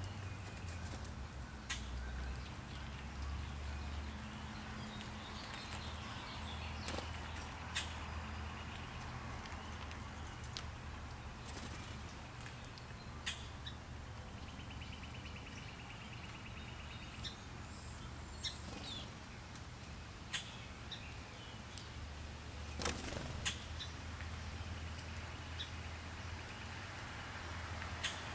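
Outdoor ambience of birds chirping in the background, with a short trill in the middle, over a steady low rumble. Scattered small clicks and taps come through, the sharpest about two-thirds of the way in.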